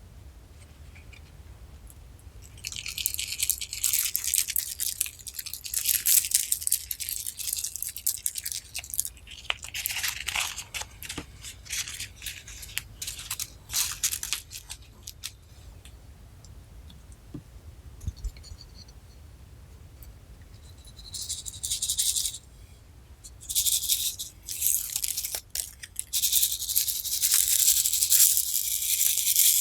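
Crisp crackling and crunching handling sounds in bursts, from slime and crushed mix-ins being worked by hand. They go quiet for several seconds in the middle and are densest near the end.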